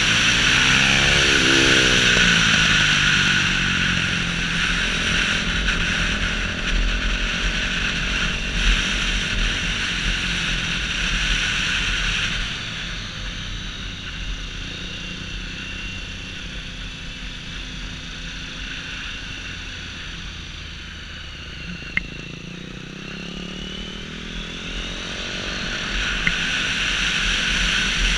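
Motorcycle engine under way, its pitch climbing as the bike accelerates at the start and again near the end, easing off in between. A heavy rush of wind over the camera is loudest in the first half and drops off about twelve seconds in.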